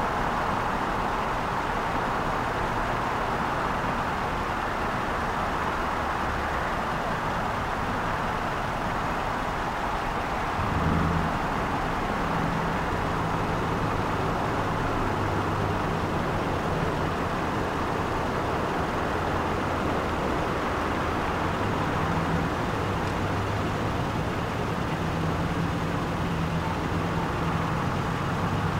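Jet engines of an Airbus A330-300 at takeoff power, a steady roar as the airliner lifts off and climbs away. About eleven seconds in, a low steady hum joins underneath.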